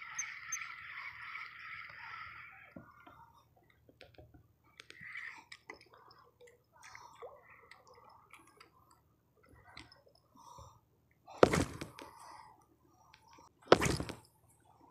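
Close handling noise from a spinning rod and reel: scattered small clicks and rustles, with two loud, brief scuffs near the end. A faint chirring call, frog or insect, fades out in the first two seconds or so.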